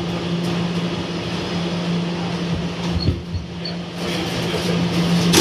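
Steady hum inside a Kawasaki R211A subway car: the car's ventilation and onboard equipment droning on one low tone. Three faint short high beeps come about three seconds in, and a sharp knock comes near the end.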